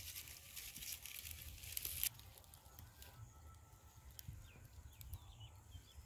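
Quiet open-field ambience: a low wind rumble on the microphone, a dry rustling hiss that stops abruptly about two seconds in, then a few faint bird chirps.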